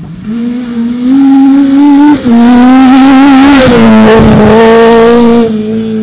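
A rally car's engine at full throttle, passing close by on a gravel stage. It climbs in pitch with a brief break for a gear change about two seconds in, then drops in pitch near four seconds, with a hiss of tyres and gravel at its loudest point.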